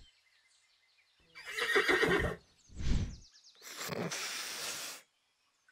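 Cartoon sound effect of a horse whinnying, followed by a short dull thump and a longer hissing noise.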